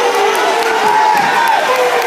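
Crowd of track spectators cheering and yelling, several voices holding long shouts over one another.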